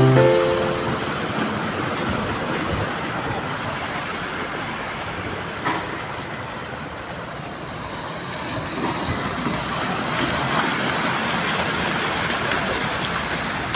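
Outdoor city street noise: a steady rushing haze like road traffic, rising and falling a little, with one short click partway through.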